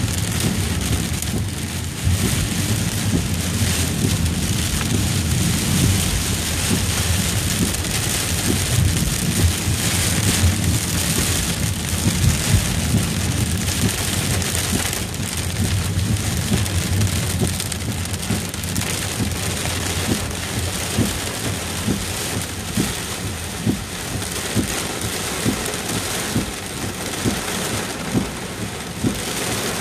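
Heavy rain pelting the roof and windshield of a moving car, heard from inside the cabin as a dense patter, over a steady low rumble of the car on the wet road.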